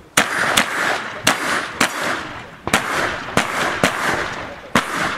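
Shotgun fire during a practical shooting stage: about eight loud shots at uneven spacing, roughly half a second to a second apart, each trailing off in a long echo.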